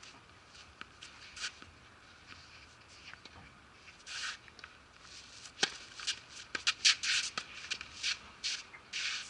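A tennis serve struck with a single sharp crack of racket on ball about five and a half seconds in, with a few faint ticks before it. Around it come repeated short bursts of scratchy rustling, loudest in the last few seconds.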